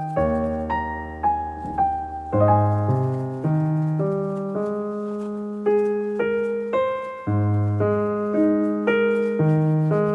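Background piano music: a slow melody of single notes over held low bass notes.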